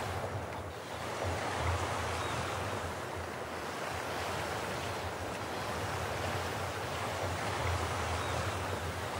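A steady rushing noise that swells and eases slowly, with a low hum underneath.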